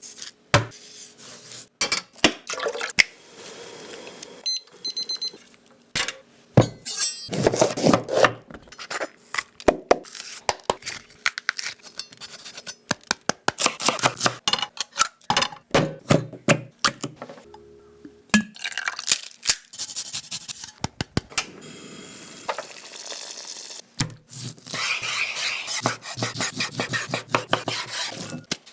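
Cooking sounds: utensils clinking, knocking and stirring against pots, pans and dishes, with many short sharp knocks and a few longer noisy stretches.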